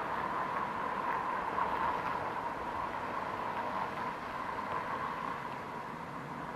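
Berlin S-Bahn class 477 electric train running on the track, a steady rolling noise with a high hum, easing slightly toward the end.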